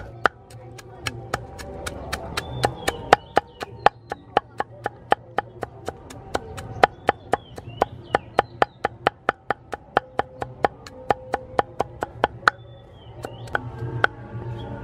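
Steel cleaver chopping garlic on a round wooden chopping block: rapid, even knocks, about three to four a second, that pause near the end before a few last strokes.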